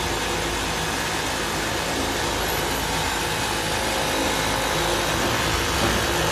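Automatic whole-roll fabric hemming sewing machine running steadily, a continuous mechanical hum and whir.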